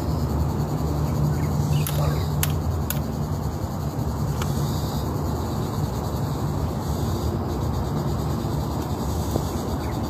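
Outdoor trail ambience: a steady low rumble with insects chirping high above it, and a few sharp clicks in the first half.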